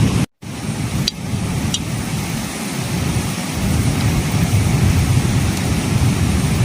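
Strong wind buffeting the microphone: a loud, low rushing that rises and falls, cut off briefly just after the start.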